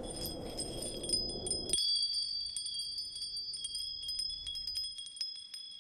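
Small suzu bells ringing and tinkling: clear, high ringing tones with many light, quick strikes. Under the first two seconds a low rumble cuts off suddenly.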